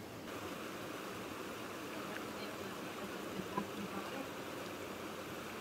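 A stream flowing steadily, a continuous rushing of water, with one small click about three and a half seconds in.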